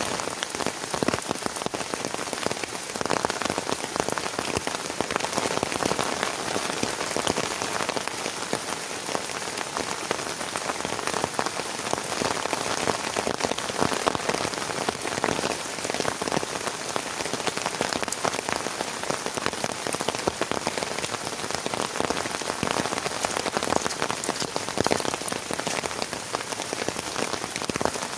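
Heavy rain falling steadily, a dense even hiss of many small drop impacts.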